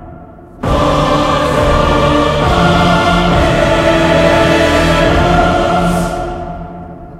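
Music with choir-like voices singing long held chords, entering abruptly a little over half a second in and fading away over the last two seconds.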